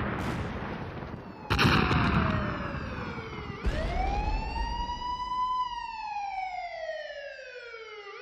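Two heavy explosions about two seconds apart, each dying away in a long rumble, followed by a wailing emergency siren that rises, then slowly falls, and starts rising again at the end.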